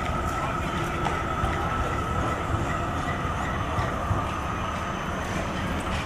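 Electric street tram passing close by on its rails: a steady rumble with a high whine that holds, drops slightly in pitch and fades about five seconds in.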